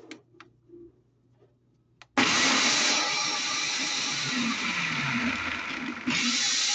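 Nutribullet blender switched on about two seconds in after a few light clicks at its control panel, its motor running loud and steady as it purées cashews, garlic, lemon juice and olive oil into a sauce. About six seconds in the motor briefly drops and comes straight back up.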